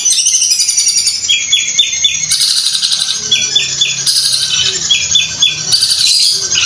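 Long-tailed shrike (cendet) singing a loud, fast, unbroken string of high chattering notes, likened to a sewing machine. Every second or two it drops into a group of three or four short, lower notes.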